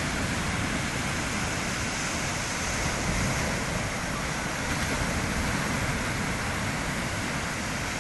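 Steady surf: small waves breaking and washing up a sandy beach, with an irregular low wind rumble on the phone's microphone.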